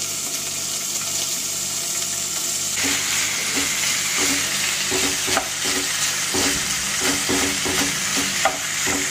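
Marinated boneless chicken pieces sizzling as they fry in hot oil in a non-stick pan. The sizzle grows louder about three seconds in. From about halfway through, a wooden spatula stirring the chicken adds repeated scrapes and taps against the pan.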